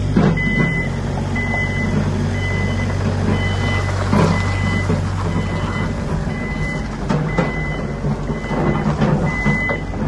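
Sany SY35U mini excavator's diesel engine running steadily while its warning alarm beeps about once a second as the machine moves, with a few metallic knocks from the tracks and undercarriage.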